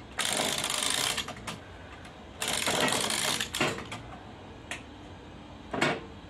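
Clamps being tightened on a steam-bending jig holding freshly steamed oak: two stretches of rapid ratchet-like clicking, about a second each, with a few single sharp metal knocks between and after.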